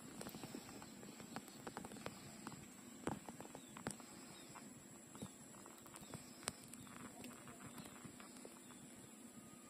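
Puppies suckling at their mother's teats: faint, irregular wet smacking and clicking, with a few sharper clicks.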